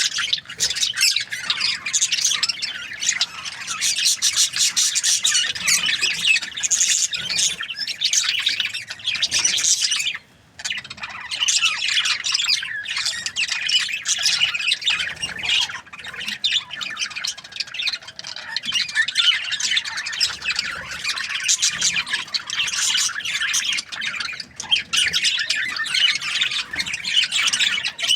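Budgerigars (budgies, parakeets) chirping, squawking and chattering without letup, with a brief pause about ten seconds in.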